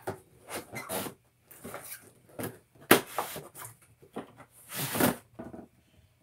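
A cardboard toy box being handled and opened: a run of short rustles, scrapes and knocks, the sharpest a snap about three seconds in.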